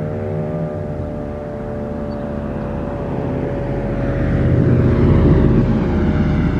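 Federal Electric Fedelcode Model 7 outdoor warning siren sounding its steady alert tone. From about the middle a vehicle passes close by, and its road noise peaks around five seconds in.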